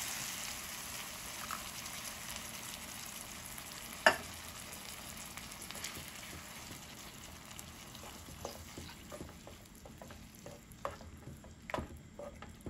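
Onion, chiles and tomato sizzling in a frying pan, the sizzle slowly dying down as canned tomato purée goes in, then a wooden spoon stirring the sauce with light scrapes and taps against the pan. One sharp knock about four seconds in.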